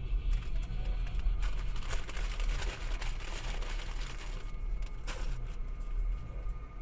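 Steady low rumble of a car driving, heard from inside the cabin. A swell of hissing noise rises and falls between about a second and a half and four seconds in, with a short burst of noise about five seconds in.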